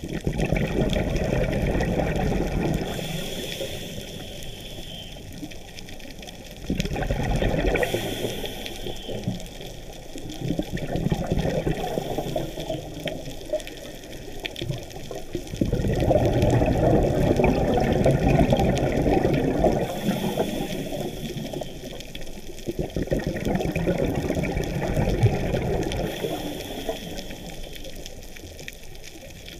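Scuba diver breathing through a regulator underwater: long rushes of exhaled bubbles every several seconds, with a thinner hiss between them as air is drawn in.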